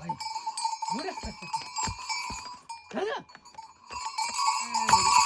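Herd animals bleating in short calls while neck bells ring steadily; the ringing grows louder near the end.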